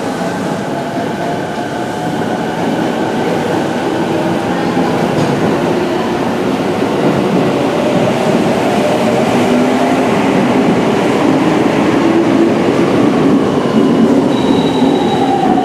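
Tokyo Metro 05N series train pulling out of the station: the whine of its Mitsubishi VVVF inverter traction motors, several tones that shift slowly in pitch, over wheel and rail noise that grows gradually louder. A higher tone joins near the end.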